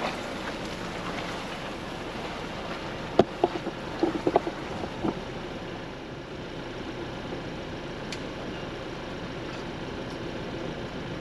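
Ford Bronco crawling slowly over a rough dirt trail: a steady vehicle rumble with wind-like noise. About three to five seconds in there is a cluster of sharp knocks and clunks as the truck works over the uneven ground.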